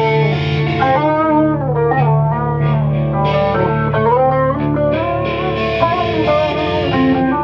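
An acoustic guitar strummed and an electric guitar played together, with lead notes bending up and down in pitch.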